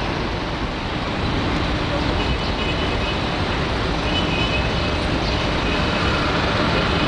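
Steady low rumble and hiss of the Blue Star Patmos passenger ferry's engines running as it comes into port.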